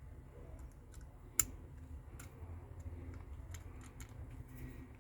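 Faint, scattered light clicks and taps of small parts being handled on a workbench, with one sharper click about a second and a half in, over a low steady hum.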